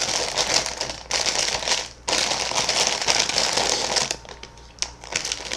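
Party-size bag of Tim's jalapeño potato chips crinkling as it is handled, in three long stretches with short breaks, then dying down to a few light crackles about four seconds in.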